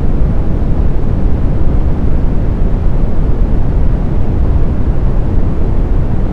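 Brown noise: a steady, deep, rushing hiss with most of its weight in the low bass and little treble, smoothed and unbroken, with no tones or rhythm.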